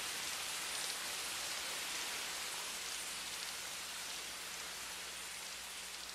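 Steady hiss of falling rain, fading slowly.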